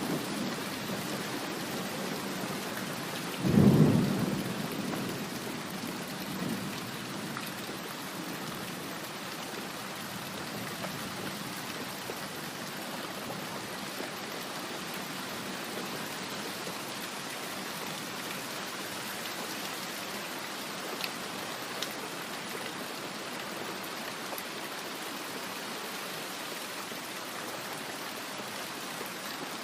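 Steady rain falling, with one thunderclap about three and a half seconds in that rumbles off over the next couple of seconds.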